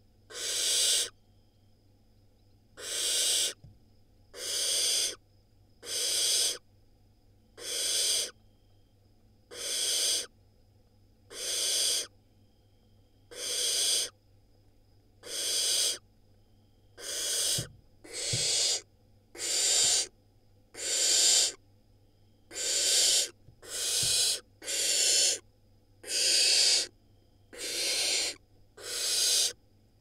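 Barn owl nestlings giving their long, rasping hiss begging calls, the 'snoring' of hungry owlets. About one hiss every one and a half to two seconds at first, then coming faster, about one a second and sometimes two close together, in the second half.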